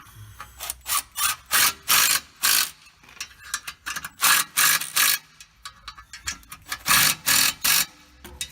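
Hand ratchet wrench clicking as it turns bolts on the clutch. Three runs of quick strokes, about three a second, with short pauses between them.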